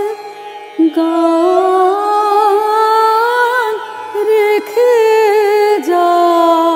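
An older woman singing a Bengali song in a slow melody, holding long notes joined by ornamented turns and wavering trills, with a brief dip just after the start.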